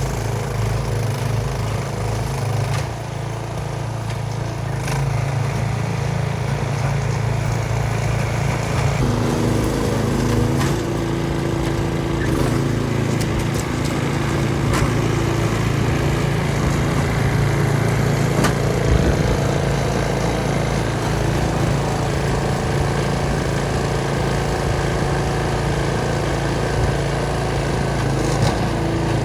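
A small engine running steadily, its note shifting about nine to eleven seconds in.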